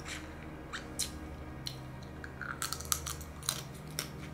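Snow crab being eaten: a string of sharp cracks and crunches as shell is broken and bitten, bunched near the start and again in the second half.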